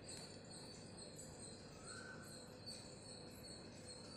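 Near silence: faint room tone with a faint, repeating high-pitched pulsing in the background.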